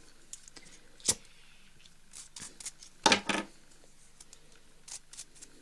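Craft items handled on a wooden desk: one sharp click about a second in, then a louder short clatter of several clicks about three seconds in.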